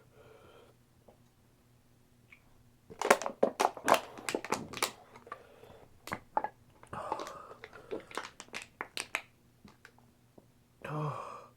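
Thin aluminium drink can crinkling and clicking in a fast, irregular run of crackles while it is drained by shotgunning, from about three seconds in to about nine. A short throaty noise follows near the end.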